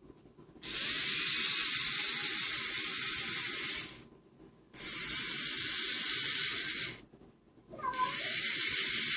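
Small DC gear motors of a homemade Picaxe-controlled RC car running in three runs of about three seconds each, a high-pitched mechanical whir that stops fully between runs. The motors are driven with PWM speed control.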